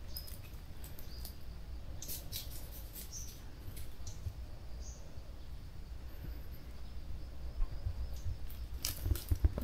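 Scattered dry crackles and snaps of bamboo litter and stems, with a few faint short bird chirps; a cluster of sharper snaps near the end.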